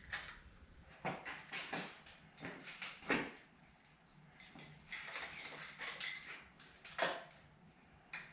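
Irregular knocks and clatter of metal parts and tools being handled on a motorcycle frame, with the sharpest knocks about three seconds in and about seven seconds in.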